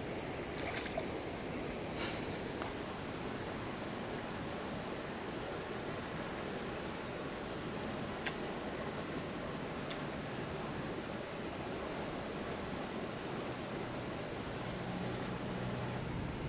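Shallow river flowing over stones, a steady rush of water, with a constant high insect buzz above it. A few short clicks and a brief scrape break in, the loudest about two seconds in.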